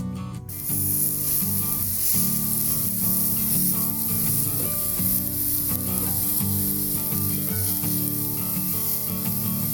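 Background music with a steady hiss laid over it, the hiss starting about half a second in.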